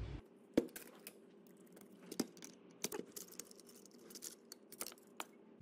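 Irregular sharp clicks and knocks of hard plastic as a Makita DHS680 cordless circular saw is handled and its housing worked open, over a faint steady hum.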